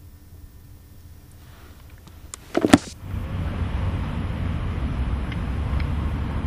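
A short, loud crackling burst about two and a half seconds in, then steady outdoor wind noise on the microphone with a low rumble.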